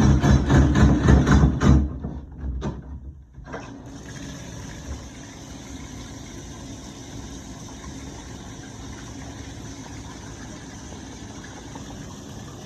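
A motor-driven machine running with a fast pulse, about four or five beats a second, that stops about two seconds in, followed by a few knocks and then a steady low hiss.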